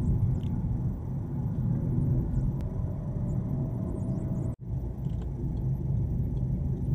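Car driving along a road: steady rumble of tyres and engine. The sound drops out for an instant about two-thirds of the way through.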